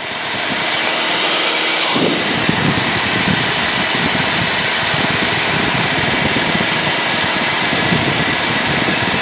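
Cessna 172N's engine and propeller in cruise, heard through the headset intercom as a steady drone with hiss. It swells over the first second and grows fuller in the low end about two seconds in.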